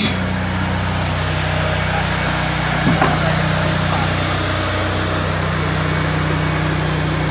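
A small engine running steadily at an even speed, with a single knock about three seconds in.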